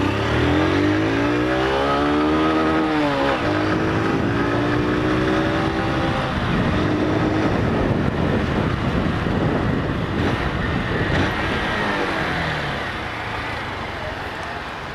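Motorcycle engine accelerating from the rider's seat, rising in pitch, with a gear change about three seconds in before it climbs again. Wind rush takes over at speed, then the engine slows and settles to a low idle near the end.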